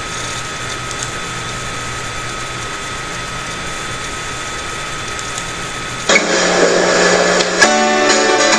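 Steady hiss and low hum of a webcam microphone; about six seconds in, a louder noisy sound for a second and a half, then an acoustic guitar chord starts ringing near the end.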